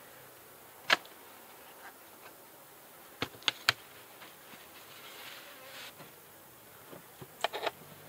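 Honey bees buzzing around an opened Langstroth hive, broken by sharp knocks and cracks of the wooden hive parts as the lid and inner cover are pried off. There is a single knock about a second in, three quick cracks around three and a half seconds, and another cluster near the end.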